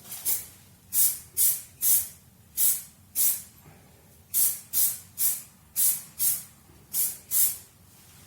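About a dozen short hissing spray puffs in quick groups of two or three: blend-in thinner being sprayed along the edge of fresh clear coat to melt the repair into the old paint.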